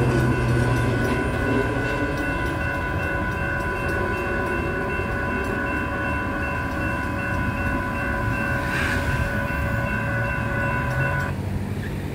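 Railroad crossing bells ringing steadily over the rumble of a passing freight train. The train noise fades over the first seconds, and the bells cut off suddenly near the end as the crossing gates finish rising.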